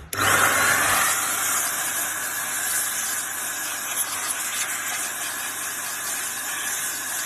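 Air duster blowing a steady jet of air into a motherboard's CPU socket to clear it: a loud hiss that starts abruptly, with a low steady hum beneath it.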